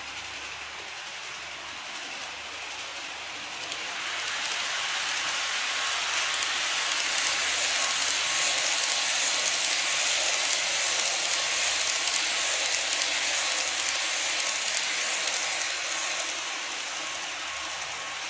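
Model train of a 189-series express running on plastic track: a steady hiss of wheels and motor that swells about four seconds in as it comes round the curve, is loudest as it passes, and eases off near the end.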